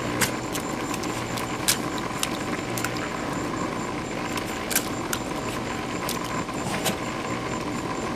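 Above-ground pool's filter pump running with a steady hum while water sprays from holes bitten in its hose, with several sharp clicks of a dog's teeth on the plastic hose.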